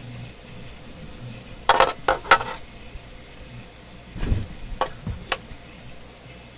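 Clinks and knocks of hard objects being handled: a quick cluster of sharp knocks about two seconds in, a duller thump a little past four seconds, then a few single clicks.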